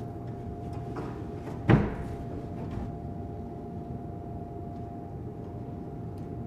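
A single sharp thud, a little under two seconds in, over a steady low hum and room noise with a faint steady tone.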